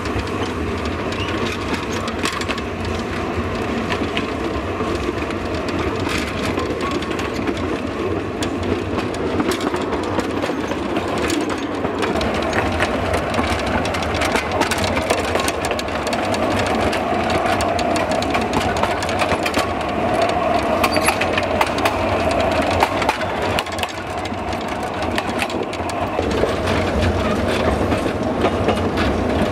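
Narrow-gauge open passenger wagons rolling along the track: a steady rumble of wheels on rails, thick with rattling and clicking from the wooden cars and couplings. A steadier, higher tone joins in for several seconds past the middle.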